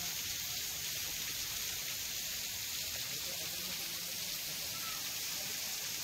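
Steady hiss of a waterfall running at low flow, thin streams of water falling down a rock face onto boulders.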